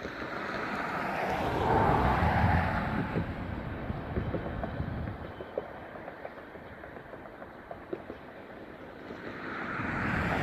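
Autorack freight train rolling past: a steady rumble of steel wheels on rail with scattered light clicks, swelling louder about two seconds in and again near the end.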